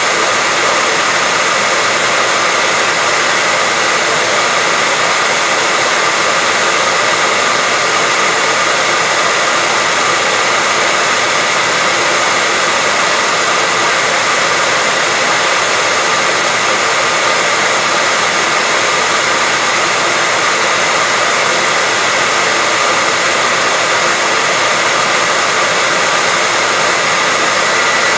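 Hair dryer running steadily on one setting: a constant rush of blown air with a steady high whine of the motor in it.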